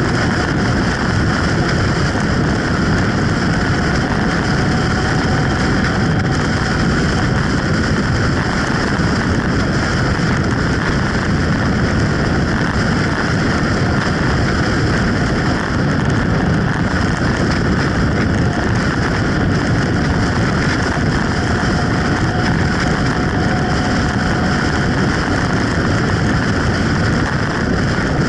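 Steady rush of wind on the microphone and road noise from a moving motorcycle at cruising speed, with the engine running beneath it.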